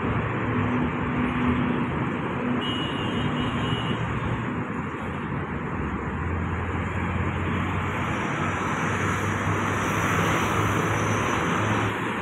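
Steady outdoor street noise with passing traffic, joined by a low hum about halfway through.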